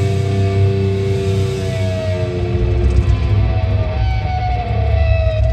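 A progressive metal band playing live through a concert PA. Electric guitars hold notes over a heavy low end, and a guitar note slides slowly down in pitch near the end, as the song reaches its final notes.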